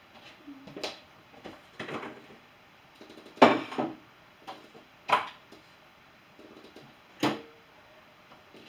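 Dishes and cutlery clattering as they are handled and stacked into a dishwasher: five or six separate knocks and clinks a second or two apart, the loudest about three and a half seconds in.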